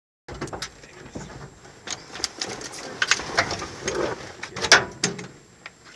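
Irregular clicks, knocks and rustling inside a pickup truck's cab as a passenger climbs in through the open door, the loudest knock about three-quarters of the way through. The sound cuts in just after the start, following a moment of dead silence.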